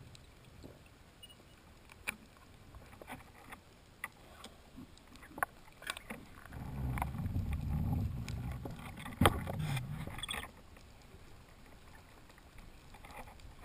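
Underwater sound heard through a GoPro housing: scattered sharp clicks, then a low rumbling water noise from about halfway through that lasts about four seconds, with one louder click in it.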